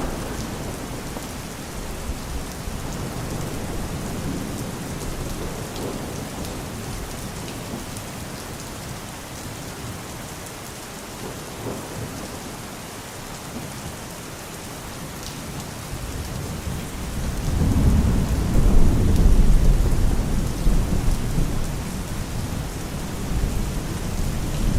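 Steady rain falling in a thunderstorm, with a long low rumble of thunder swelling up about two-thirds of the way through and slowly dying away.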